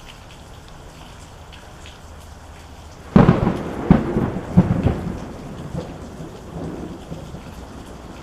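Steady rain with a sudden close thunderclap about three seconds in: a sharp crack, a few quick further cracks, then a rumble that fades away under the rain.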